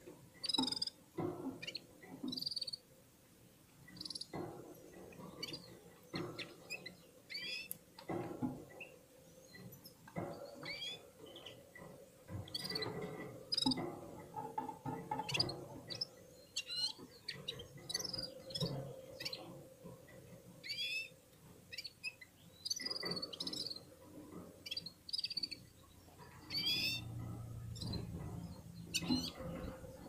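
Caged red-fronted serins singing: quick bursts of high chirps and short twittering trills, one after another.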